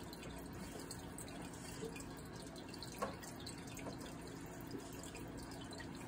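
Faint steady hum and hiss, with a single sharp click about three seconds in and a few fainter ticks.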